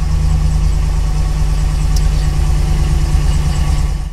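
Ram pickup's Gen3 HEMI V8 idling steadily just after start-up, heard from inside the cab. The engine is running a freshly flashed stock calibration with MDS cylinder deactivation disabled.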